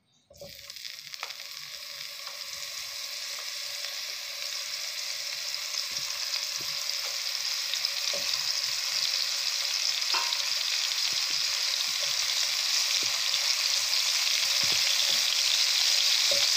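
Salted dried shark fish pieces sizzling as they fry in hot oil in a wok. The sizzle starts suddenly just after the start and grows steadily louder, with scattered pops.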